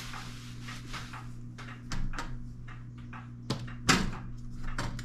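Handling noises: irregular rustling and clicking, with two sharp knocks about three and a half and four seconds in, over a steady low hum.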